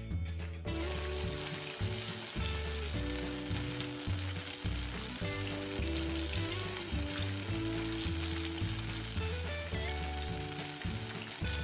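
Batter-coated bananas deep-frying in hot oil in a pan, the oil sizzling steadily. It comes in about a second in, with background music underneath.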